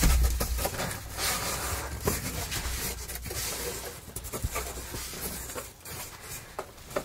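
Cardboard shipping box being handled and opened by hand: the flaps scrape and rustle, with scattered small knocks and a dull thump at the start.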